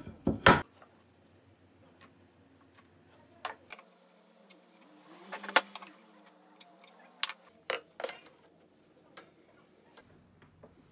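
A wooden jig and pen handled against a wooden table leg: scattered sharp wooden knocks and clicks, the loudest just after the start, with a short scratchy stretch in the middle as the pen marks the wood through the jig.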